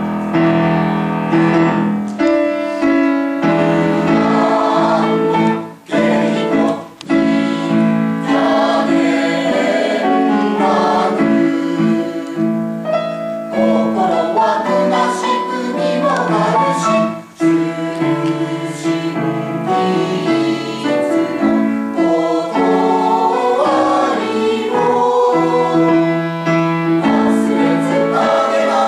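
A PTA choir singing a Japanese choral song with piano accompaniment, pausing briefly twice between phrases.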